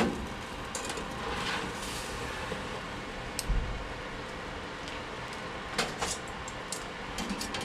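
Countertop air fryer oven running with a steady fan whir, broken by a few light clicks and a soft low thump about halfway through.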